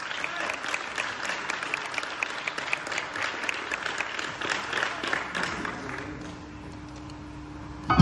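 Audience applauding, the clapping thinning out and dying away about six seconds in, leaving a faint steady hum.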